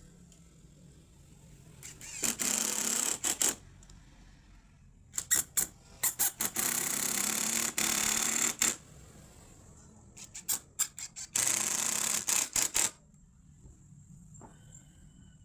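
Power drill driving screws in three runs of a second or more each, with short trigger blips as each run starts and ends, while fastening the legs onto a coffee table.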